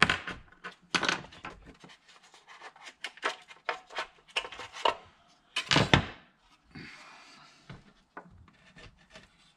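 Plastic housing of a Dodge Ram TIPM (Totally Integrated Power Module) being pried and pulled apart by hand: a run of clicks, clacks and plastic rubbing. The loudest clacks come at the start, about a second in and near six seconds, followed by a short scrape just after.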